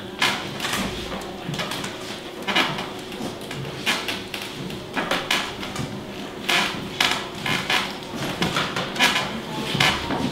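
Irregular crunching, scraping and rustling as a crumbly white material is pushed, stirred and kicked about in a shallow trough, in quick uneven strokes. A faint steady hum runs underneath.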